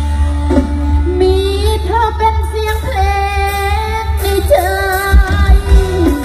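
Isan soeng-style song with a woman singing, played loud through a parade sound truck's speaker system during a sound check. Heavy bass runs throughout, and drum hits come in near the end.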